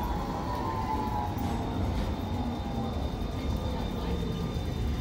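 Tram pulling into a stop, its motors whining slowly downward in pitch as it brakes over a low rumble of wheels on the rails; the whine fades out about halfway through.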